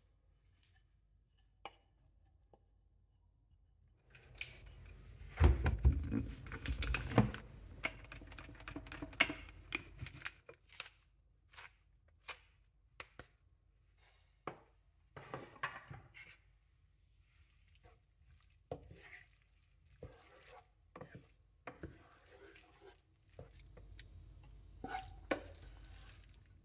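Thick risotto being stirred in a nonstick pan with butter and cheese off the heat: a utensil scrapes and knocks against the pan through wet, sticky rice. The steady stirring starts about four seconds in and lasts several seconds, followed by scattered separate clicks and taps of utensils against the pan and dish.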